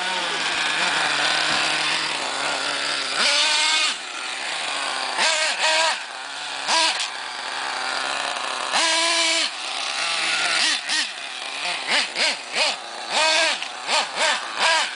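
Small nitro engine of a 1/8-scale TNX5.2R RC truck, high-pitched, dropping back toward idle early on and then revved in repeated throttle blips, each rising and falling in pitch; the blips come short and quick from about two-thirds of the way in.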